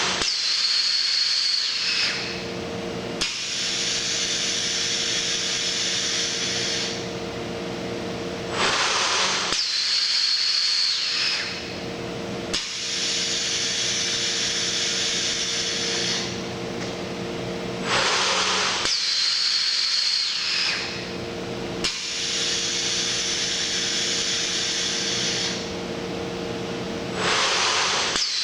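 Sencorp 2500 roll-fed thermoformer running through its forming cycle: about every nine seconds there is a loud burst of compressed-air hiss from its pneumatic valves and air cylinders. Between bursts there is a steady hum with a high hiss.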